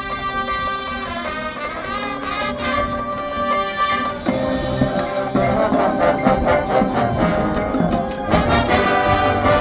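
High school marching band playing: brass holding sustained chords over percussion, the full ensemble coming in fuller and slightly louder about four seconds in.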